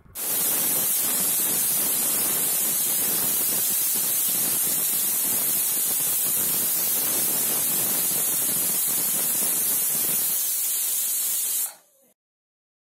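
Aluminium pressure cooker venting steam hard through its weighted whistle on the lid, a loud steady hiss: the cooker is up to pressure. The hiss stops suddenly about two seconds before the end.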